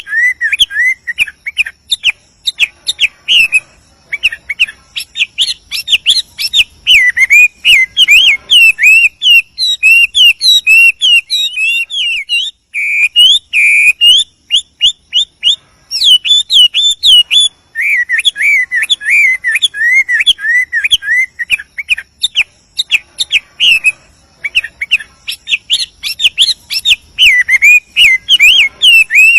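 Male Chinese hwamei singing a long, continuous, varied song of fast whistled phrases that sweep up and down without pause, with a quick run of evenly repeated rising notes about halfway through.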